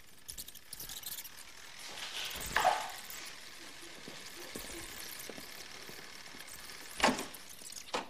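A few knocks and clicks from a reel-to-reel tape deck being handled, its controls and reels worked by hand, over low room noise.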